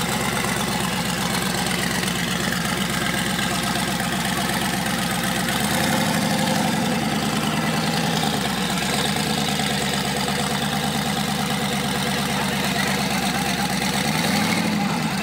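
Car engines idling, the low engine note shifting a couple of times and rising and falling briefly near the end.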